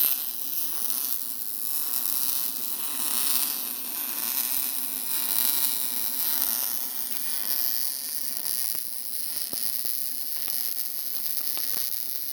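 MIG welder arc running on mild steel: a steady hiss and buzz, with sharp crackles from about eight seconds in.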